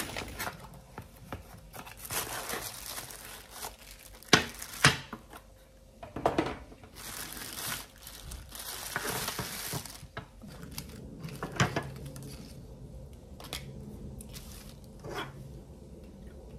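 A paper box being opened and a clear plastic bag crinkling and rustling as wooden salad servers are unwrapped, with several sharp clicks and taps among the rustling. The rustling dies down about two-thirds of the way through.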